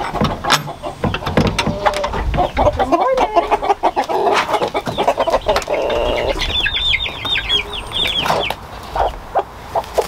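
Young chickens clucking and squawking, with a quick run of high, rapid peeps about seven seconds in. A latch clicks sharply at the start.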